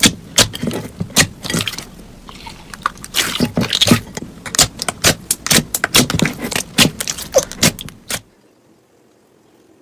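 Slime being squeezed and worked by hand, giving a fast irregular run of pops and clicks that stops abruptly about eight seconds in.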